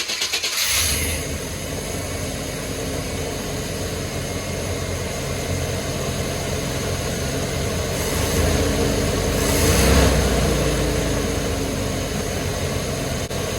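1994 Chevy C2500 pickup engine finishing cranking on the starter and catching about half a second in, then running steadily, with a brief rev that peaks about ten seconds in. It starts and runs on freshly fitted spark plugs, plug wires, distributor cap and rotor, a sign the firing order is right.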